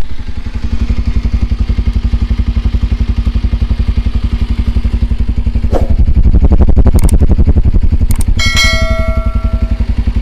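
Bajaj Pulsar 125 BS6's single-cylinder engine idling through its stock exhaust with an even pulse, then revved briefly about six seconds in before settling back. A short high tone sounds for about a second near the end.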